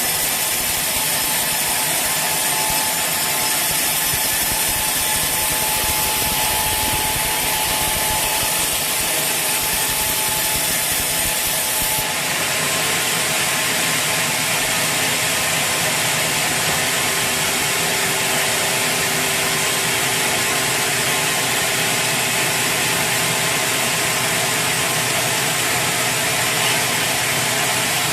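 Sawmill saw cutting through a teak log, a steady, continuous run of blade through wood. About twelve seconds in the sound changes abruptly and becomes higher and hissier.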